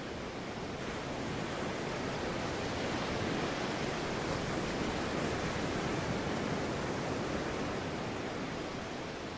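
Ocean surf breaking over a rock shelf: a steady rush of white water that swells a couple of seconds in and eases off near the end.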